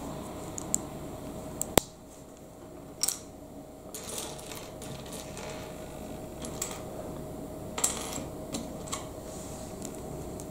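Plastic Lego bricks clicking and clacking as they are handled and snapped together: scattered sharp clicks, the loudest a little under two seconds in, over a faint steady hum.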